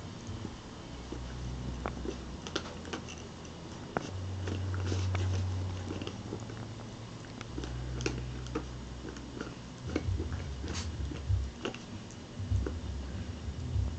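Puppy gnawing and chewing on a small toy, a scatter of small clicks and crunches, with a low rumble coming and going.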